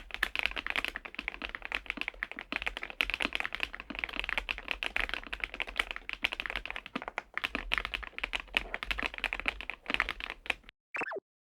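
Fast typing on a Kzzi K98 mechanical keyboard: a dense, continuous run of key clacks that stops about a second before the end. A short falling tone sounds just after the typing stops.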